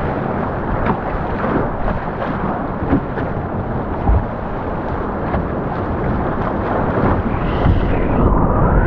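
Whitewater of a Class 3 rapid rushing loudly and steadily as an open canoe is paddled through the waves.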